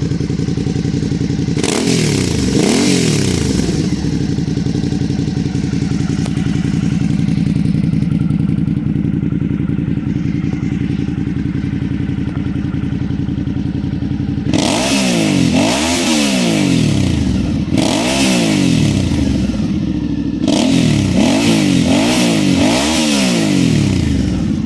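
Suzuki V-Strom 650 XT's 645 cc V-twin, fitted with a WR Authentic sport slip-on exhaust, idling with throttle blips. One rev comes about two seconds in, then a series of quick revs over the last ten seconds.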